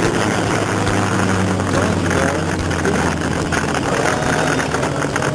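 Sport motorcycle's engine running at steady high revs, heard from the rider's seat, with wind rushing over the microphone.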